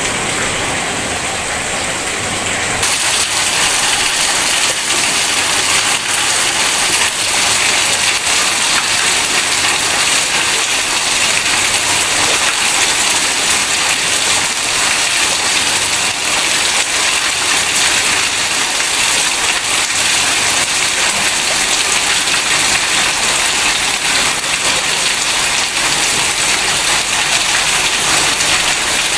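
Heavy rain pouring steadily, an even hiss that grows louder and brighter about three seconds in.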